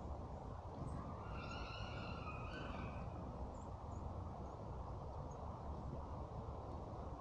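A tit gives a brief buzzy call about a second in, lasting under two seconds, followed by a few faint high chirps, over a steady low background rumble.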